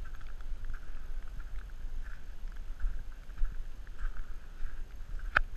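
Footsteps crunching on loose volcanic cinder over a steady low rumble, with one sharp click near the end.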